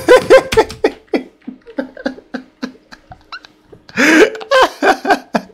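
A man's wordless vocal noises that slide in pitch. One burst is at the start and a louder, drawn-out one comes about four seconds in. Between them are quieter faint knocks and voices.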